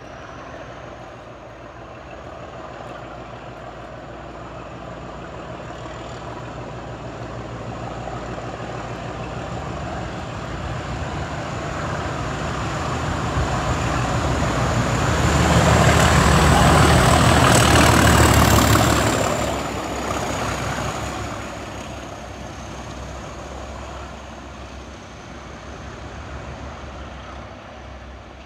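British Rail Class 37 diesel locomotive 37418 at full power, its English Electric V12 engine thrashing hard, with the high whistle of its turbocharger over the top. It grows steadily louder as it approaches, is loudest as it passes a little past halfway, and the whistle drops in pitch as the locomotive draws away and fades.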